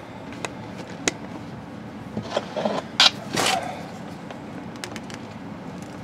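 Handling noise as a pair of cutters is brought up to a coaxial cable: scattered small clicks and a short rustle about three and a half seconds in, over a steady low hum.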